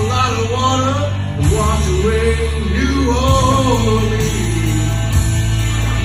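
Music: a rock song, a wavering melody line over a steady, heavy bass.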